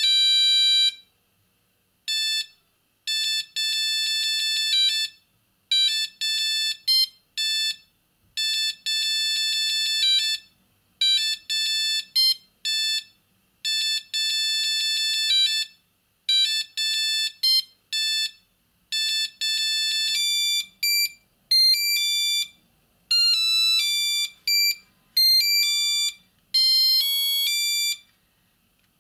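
Siemens C25 mobile phone playing its monophonic ringtones: a melody of short, bright electronic beeps in repeated phrases separated by brief pauses, changing to a faster, different tune about twenty seconds in.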